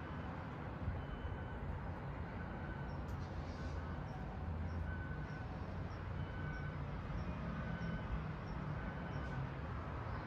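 Outdoor ambience: a steady low rumble, with faint bird calls repeating about once a second and a thin high chirp about twice a second through the middle.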